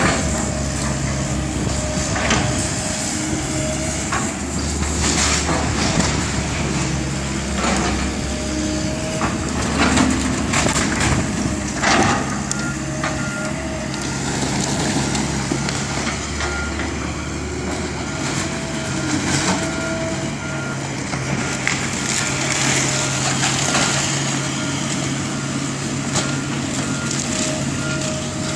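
Komatsu tracked excavator's diesel engine running under load as it tears apart a wooden building, with wood cracking and splintering and debris crashing down several times. A beeping alarm comes and goes.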